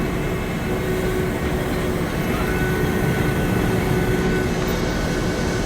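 John Deere combine running while shelling corn: a steady low mechanical drone with a constant hum through it, and a thin higher whine joining in about two seconds in.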